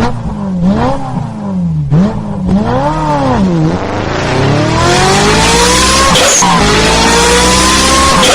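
A motor vehicle engine revved up and down several times, then accelerating with a long, steadily rising pitch and a short break about two-thirds of the way through.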